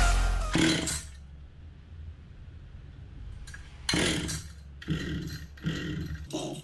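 A vintage Stihl 020 AVP chainsaw being pull-started on its recoil starter: a first hard pull about four seconds in, then more pulls and a rhythmic series of strokes near the end, about three a second. The engine turns over but never fires, which the owner puts down to no spark and probably a failed ignition coil.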